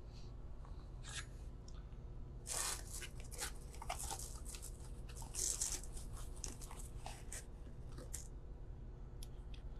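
Plastic wrapping and a cardboard box rustling and crinkling in scattered bursts as a new brass booster pump is unpacked, over a steady low hum.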